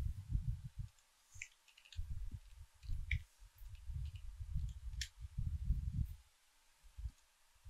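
Typing on a computer keyboard: scattered sharp key clicks over uneven dull low thumps.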